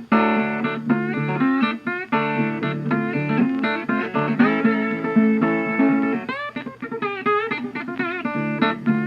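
Background music of plucked guitar with a steady bass line, and notes sliding and bending in the middle.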